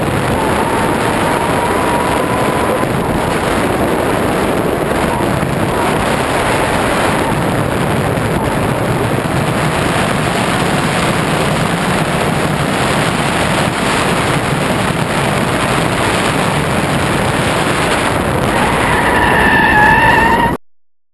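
Steady rushing wind and propeller noise picked up by the camera on board a Skywalker V2 FPV plane in flight. In the last couple of seconds, as the plane comes down onto the pavement, a whine swells and gets louder, then the sound cuts off abruptly.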